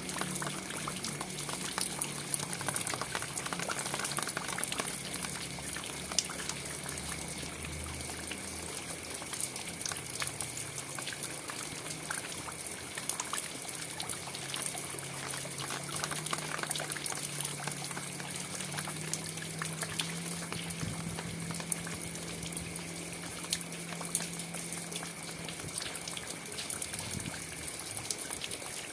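Steady rain falling, an even hiss dotted with many sharp individual drop ticks. A faint low hum that shifts slowly in pitch runs underneath.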